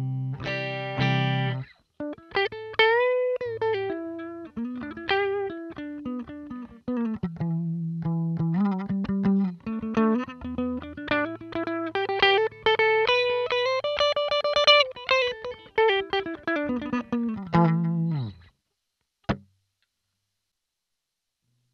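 1977 Aria Pro II electric guitar played clean, with no effects, through a Fender Mustang GT100 amp's Roland JC-120 clean model, over 50 feet of cable and a non-isolated power supply. A chord rings out first, then a single-note riff with bent and sliding notes, which stops about three seconds before the end, followed a second later by one short click.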